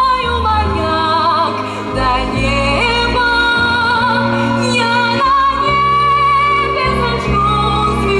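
Music: a woman singing long held notes with vibrato over a steady bass accompaniment.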